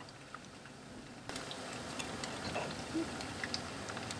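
Battered chicken strips deep-frying in hot oil in a deep pot: a steady sizzle full of small crackles and pops, growing louder about a second in.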